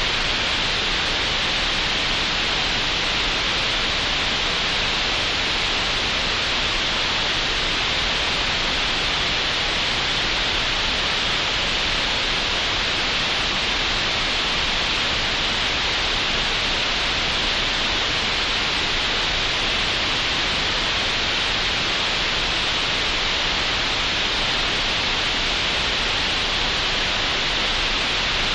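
Steady green noise: a continuous, unchanging hiss with the most weight in the middle-upper range, made in Audacity as a relaxation sound.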